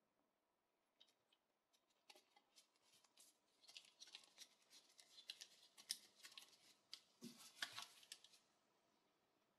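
Nitrile-gloved hands handling a pair of brass field binoculars: a string of faint small clicks and rubbing, busiest between about four and eight seconds in.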